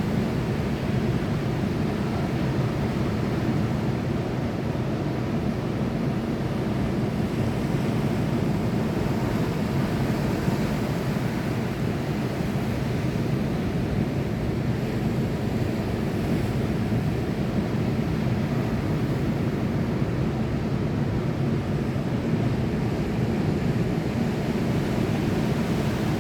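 Sea surf: a steady low rushing, even throughout, with no separate wave breaks standing out.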